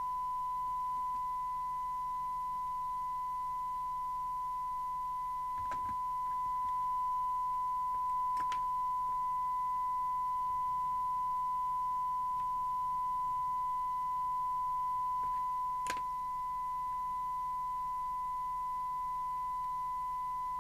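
Steady 1 kHz test tone from a Magpie Autoscan 5000 CB radio's receiver audio: the demodulated signal-generator tone used for a SINAD sensitivity check while the detector is re-tuned. Three faint clicks break in, the sharpest about three quarters of the way in.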